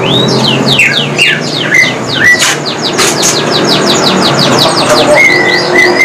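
Caged songbird singing loudly: a fast run of repeated, quickly falling whistled notes, about five or six a second, ending in a steady held whistle about a second before the end.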